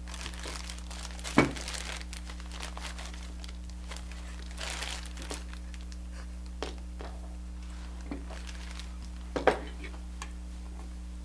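Plastic bag crinkling and rustling in scattered bursts, with two sharp knocks, one about a second and a half in and one near the end.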